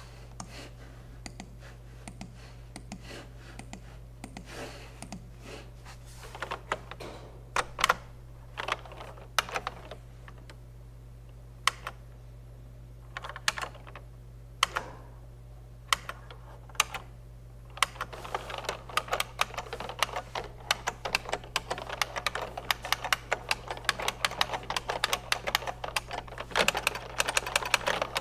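Typing on a computer keyboard. Scattered single key presses for most of the first two-thirds, then fast, continuous typing over the last ten seconds or so, with a steady low hum underneath.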